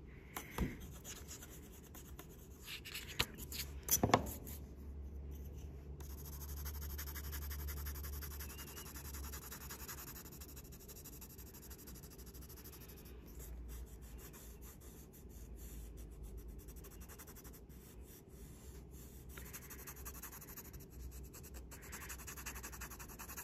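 Graphite pencil and eraser working drawing paper: quiet, steady rubbing and scratching strokes, with a few light knocks in the first four seconds.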